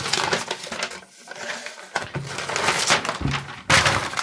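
Packaging being handled, with crinkling and crackling in uneven bursts and a sharper crackle near the end.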